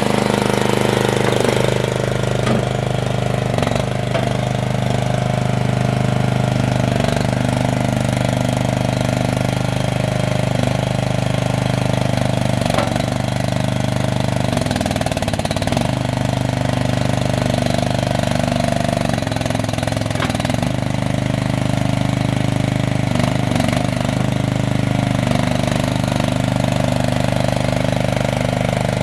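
Engine of an AGT MXMRW14 mini skid steer loader running steadily at a constant speed, with a few faint knocks here and there.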